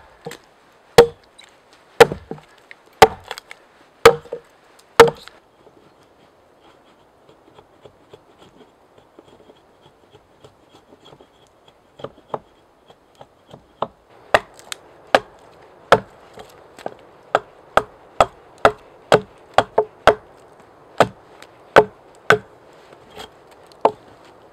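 Axe blade chopping into a log, hewing it flat: sharp strikes about once a second, then several seconds with only faint ticks, then quicker strikes about two a second through the second half.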